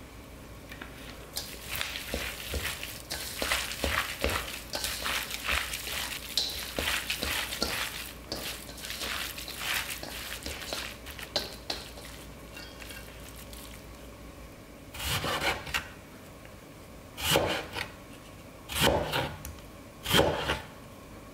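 Gloved hands mixing and squishing seasoned raw beef strips in a stainless steel bowl, a dense wet rubbing sound. After a lull, a chef's knife slices through pale fruit onto a wooden cutting board: about four separate cuts, roughly a second and a half apart.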